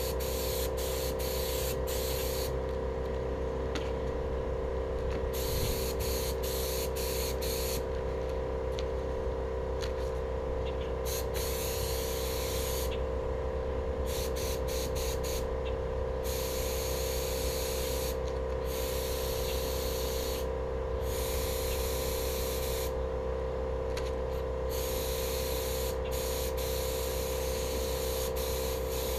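HVLP paint spray gun hissing in repeated passes, cutting out for short pauses as the trigger is released. A steady hum runs underneath.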